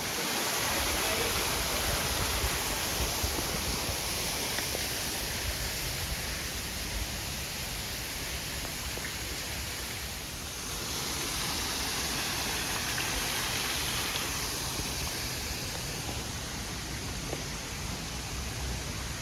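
Steady rush of water from a waterfall and its stream, dipping a little about halfway through.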